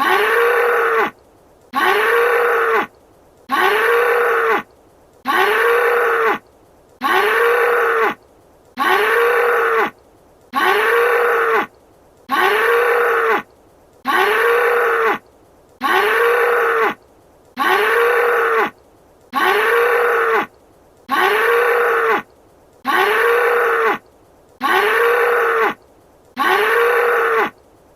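Bull bellowing: the same short bellow looped over and over, about every one and a half seconds. Each call rises and falls in pitch.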